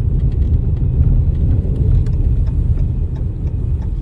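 Steady low rumble of a car driving, with faint scattered ticks throughout.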